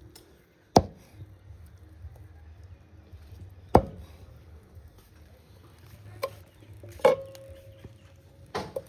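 Heavy blade chopping down onto a wooden block, five sharp strokes one to three seconds apart; after the fourth, a ringing tone hangs on for more than a second.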